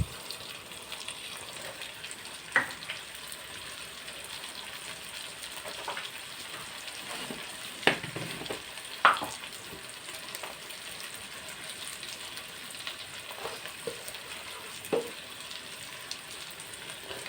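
Tomato masala frying in oil in a kadai with a steady sizzle while it is stirred, with a few sharp knocks of the spoon against the pan.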